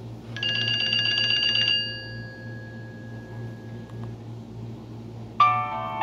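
Nokia Asha 300 ringtones played through a Nokia 130's small loudspeaker. A short melodic ringtone begins about half a second in, rings for about a second and a half and trails off. A different ringtone starts abruptly near the end.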